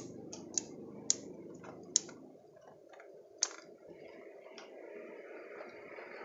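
Bonsai pruning scissors snipping twigs off an anting putri (Wrightia religiosa) bonsai. There are about seven sharp, irregularly spaced snips, most in the first few seconds, and the first is the loudest.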